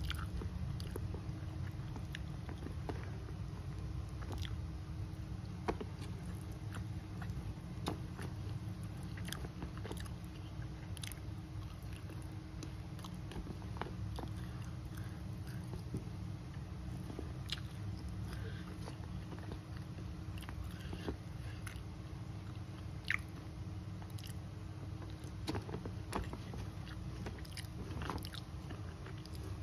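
Close-miked chewing and biting of duck and rice, with scattered small wet clicks and crunches, over a steady low hum.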